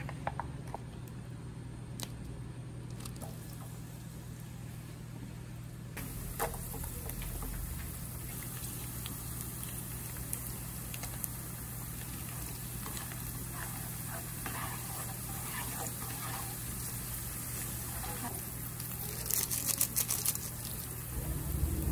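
Sliced garlic frying in olive oil in a nonstick pan, starting about six seconds in as a steady sizzling hiss over a low hum. The sizzle turns crackly near the end as crushed red pepper flakes go into the oil.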